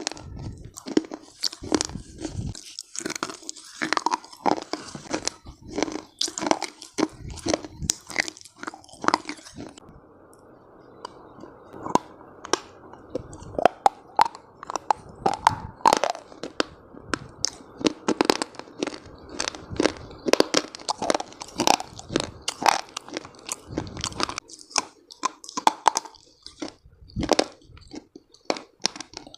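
Close-miked ASMR chewing and crunching of brittle earthy chalk pieces, a dense run of sharp crunches. About a third of the way in the crunches turn duller, with the high hiss gone.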